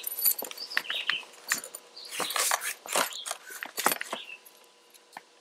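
Rustling and sharp clicks as a folding multi-tool is pulled out of its nylon belt pouch and handled, with light metallic clinks.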